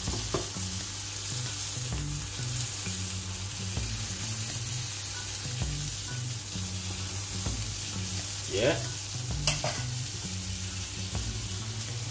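Bacon-wrapped stuffed chicken breast sizzling in oil in a griddle pan, a steady hiss throughout, with one sharp tap near the end.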